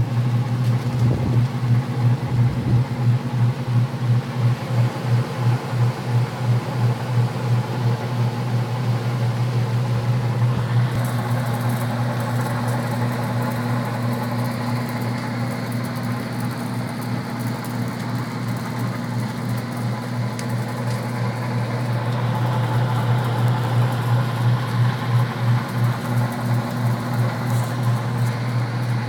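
Old belt-driven furnace blower running, its electric motor and fan giving a loud steady low hum with a rhythmic pulsing about two or three times a second that fades through the middle and returns near the end.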